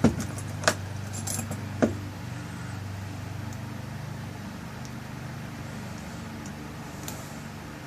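Small metal clicks and clinks of a lock cylinder and its tail piece being handled and screwed back on: three sharp clicks in the first two seconds, then a few faint ticks, over a steady low hum.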